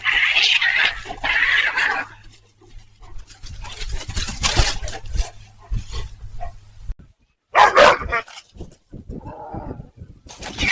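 A dog barking in repeated bursts, with a break about seven seconds in.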